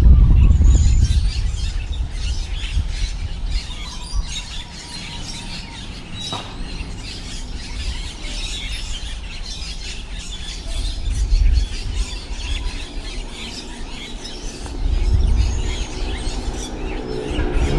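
Strong wind gusting, buffeting the microphone with a low rumble that peaks at the start and swells again twice later on, while small birds chirp and twitter throughout.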